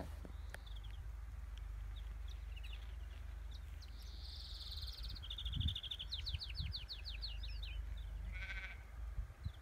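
European greenfinch singing: a wheezing buzz, a short trill, then a quick run of chirping notes, with a short nasal call near the end. Wind rumbles low on the microphone.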